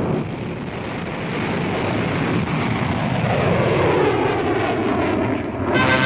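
Rocket launch following a countdown: a loud, steady rushing engine noise with a slow sweep in pitch partway through. Brass-led music cuts in near the end.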